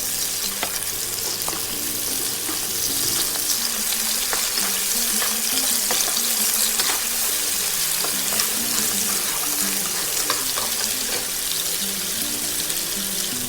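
Chopped garlic, ginger and spring onion sizzling steadily in hot sunflower oil as they are stir-fried, with a few light ticks of stirring.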